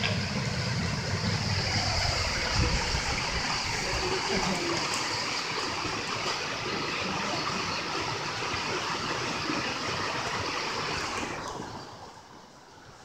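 Steady rush of fast-flowing river water, fading out near the end.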